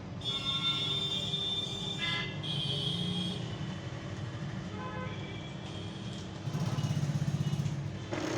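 Brother HL-L2321D laser printer starting up after power-on: its drive motor whirs with high whining tones, and from about six and a half seconds in a fast low grinding rattle comes in. This is the fault noise, which the owner traces to a roller wheel inside the back that isn't pressing properly.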